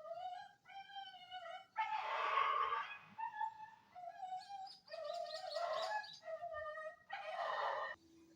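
Village dogs whining in a run of short, high-pitched cries, broken by three harsher, rougher yelps about two, five and seven seconds in.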